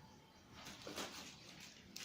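Faint rustling and handling of packaging, with a light click about a second in and another near the end.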